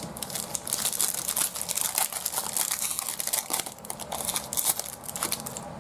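Crinkling of a foil trading-card pack wrapper being handled and opened, a dense run of quick crackles throughout.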